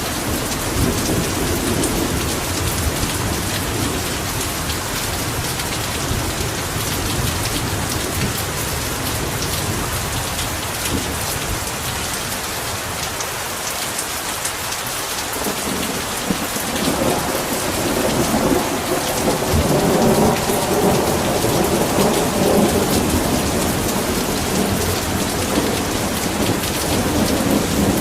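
Heavy rain falling steadily, with rolling thunder rumbling low under it at the start and swelling again in the second half.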